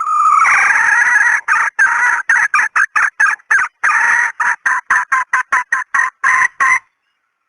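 A chicken calling: one long call, then a fast run of about twenty short, clucking notes at three to four a second that stops abruptly about a second before the end. It is a lure call meant to draw wild red junglefowl.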